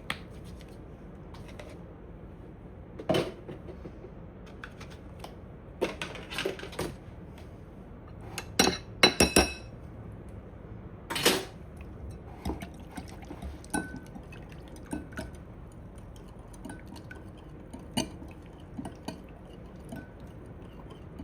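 Kitchen utensils clinking and knocking against a mixing bowl and dishes in scattered, irregular strikes, with a quick run of clinks around the middle.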